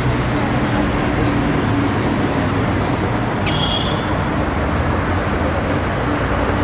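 Steady low hum of a running vehicle engine over street traffic noise, with a short high chirp about three and a half seconds in.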